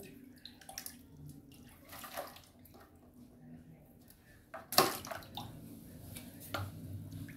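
Water splashing and sloshing in a plastic bucket as small fish are tipped out of a mesh hand net, with scattered short splashes and clicks. A sudden sharp sound about five seconds in is the loudest.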